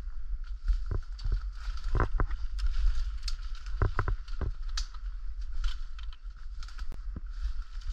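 Footsteps pushing through dense saplings and brush, with irregular sharp twig snaps and rustling, over a steady low rumble on the microphone.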